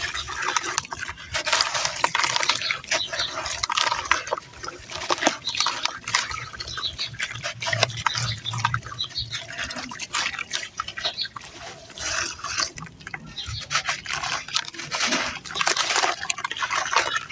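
Close-miked crunching of gritty baked red dirt, bitten and chewed in a continuous run of irregular, gritty crackles.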